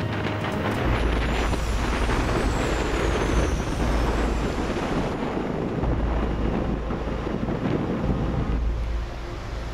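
Wind buffeting the microphone: a steady rushing noise with an uneven low rumble that comes and goes in gusts.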